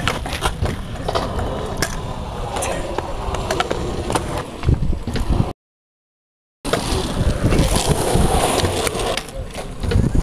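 Stunt scooter wheels rolling on concrete and asphalt, with sharp clattering knocks from the deck and landings. The sound cuts out completely for about a second just past the middle.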